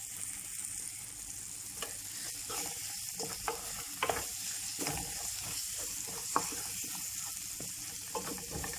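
Tomato paste being stirred into a sizzling pan of frying onion, garlic and tomato, a spoon or spatula scraping and clicking against the pan now and then over a steady sizzle.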